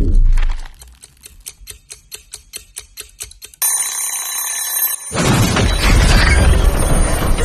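A wind-up mechanical kitchen timer ticks fast and evenly, about seven ticks a second, then its bell rings for about a second and a half. A loud, low rumble then cuts in suddenly and is the loudest sound.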